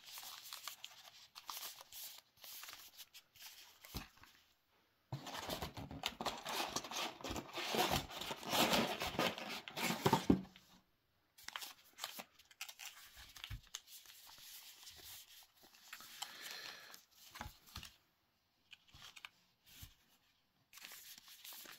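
Paper-wrapped trading card booster packs rustling and scraping as they are handled and sorted, loudest for about five seconds in the middle.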